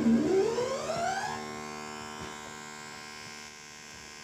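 Future Sound Systems Brunswick synthesizer: a buzzy pulse wave through its resonant high-pass filter with FM turned right up. The resonant peak sweeps down and then back up, then settles into a steady buzzing drone that slowly fades.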